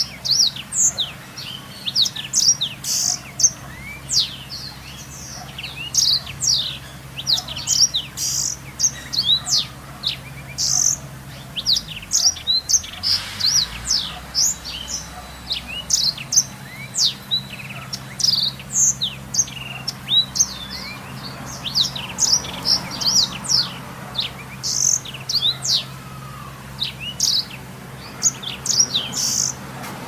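A black-throated canary (blackthroat) singing without pause: a fast run of high, sharp chirps and trills.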